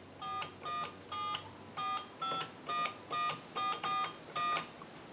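Touch-tone (DTMF) keypad wired into an antique wooden wall crank telephone, dialing a number: about ten short dual-tone beeps, one per key press, keyed at an uneven pace of roughly two a second.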